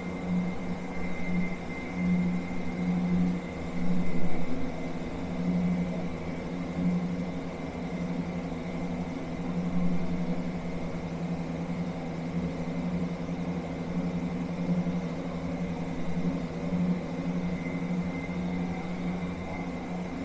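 A steady low mechanical hum, like an idling engine or running machinery, with a faint high whine above it.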